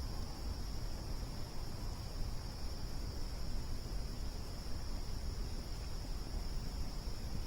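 Crickets trilling in one steady, unbroken high-pitched band, over a constant low rumbling noise.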